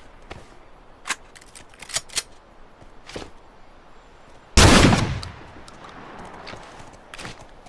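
A single loud shotgun shot about four and a half seconds in, echoing away over a second or so. Several sharp, quieter clicks come before it and a few more near the end.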